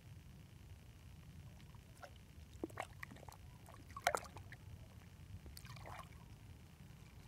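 A carp moving in shallow water, giving a few short splashes and trickles, the sharpest about four seconds in, over a steady low rumble.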